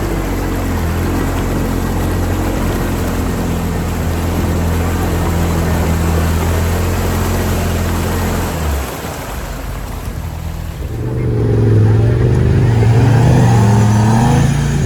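Off-road vehicle engine running steadily with water noise, then from about 11 s in revving up and down, its pitch rising and falling, as it works through deep water.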